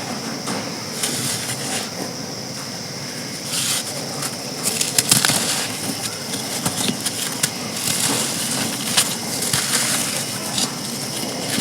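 Dry compacted sand chunks being crumbled and crushed by hand: a steady crisp crackling and crunching, busiest about five seconds in, with one sharp snap near the end.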